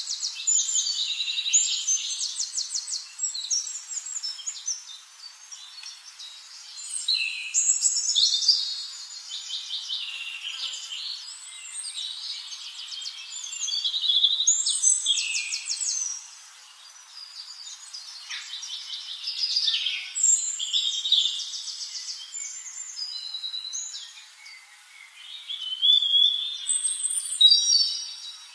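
Birds calling in repeated bouts of rapid high trills and chirps, one bout about every six seconds, with quieter chirping between.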